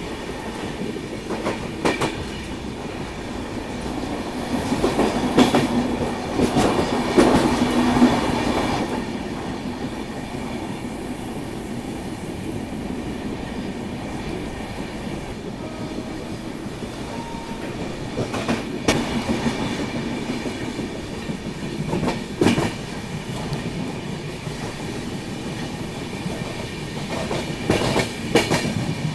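Indian Railways passenger train running, heard from an open coach doorway: a steady rumble and rattle of wheels on rails, with sharp clacks several times. It is loudest a few seconds in.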